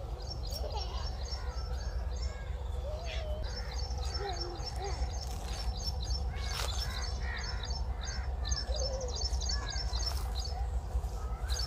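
Several birds calling outdoors: quick, repeated high chirps all the way through, mixed with scattered lower, swooping calls. A steady low rumble runs underneath.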